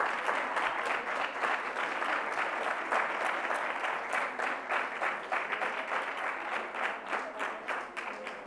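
Audience applauding, the clapping slowly dying away near the end.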